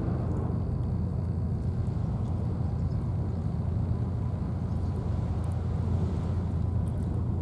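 A steady low rumble of outdoor background noise with no breaks, with a few faint ticks above it.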